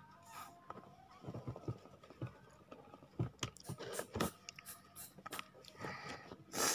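A person chewing honeycomb close to the microphone: irregular wet mouth clicks and chewing noises, with a louder burst of noise near the end.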